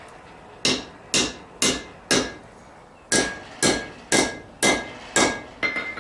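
Blacksmith's hand hammer striking a red-hot steel bar on an anvil to shape it, each blow with a short metallic ring. Four blows about two a second, a pause of about a second, then six more.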